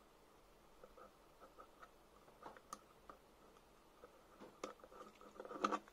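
Faint small metal clicks and scrapes of a thin metal rod working in a hole of an aluminium square tube, with a louder cluster of clicks near the end.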